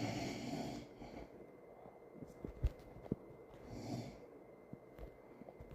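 An elderly woman snoring: one snore fades out about a second in and another comes about four seconds in. Between them are two sharp clicks, the loudest sounds here.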